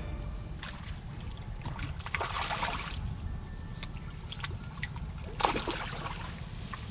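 Water splashing as a hooked crucian carp thrashes at the surface while being drawn in, in two surges about two seconds and five and a half seconds in, with a few sharp clicks between.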